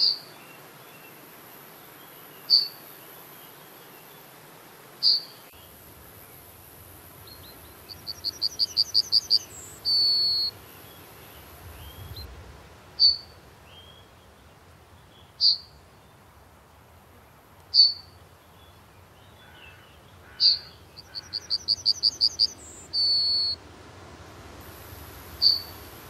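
Yellowhammer singing its song twice: a quick run of about eight short repeated notes ending in one longer drawn-out note. Between the songs come single short, sharp notes every two to three seconds.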